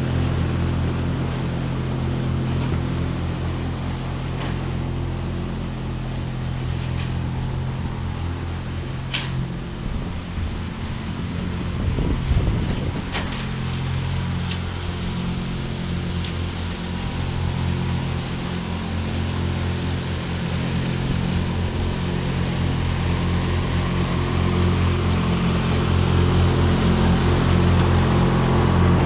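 Ride-on lawn mower's engine running steadily while cutting grass, somewhat quieter as it moves off to the far end and getting louder again near the end as it comes back.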